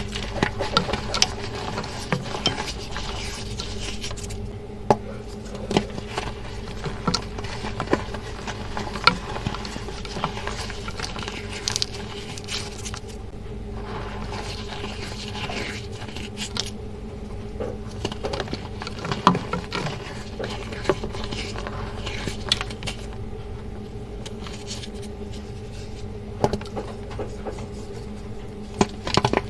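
Crunchy re-formed powder blocks (water crumbles) being crushed and crumbled, giving irregular crunches and sharp crackles with a steady low hum underneath.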